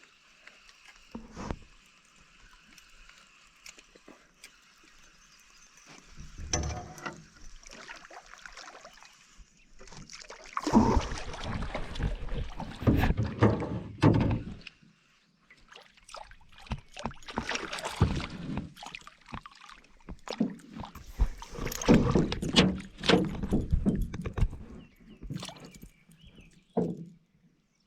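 Irregular knocking and clattering of gear against a small fishing boat, with water sloshing around the hull. It comes in two busy stretches after a quieter hiss in the first part.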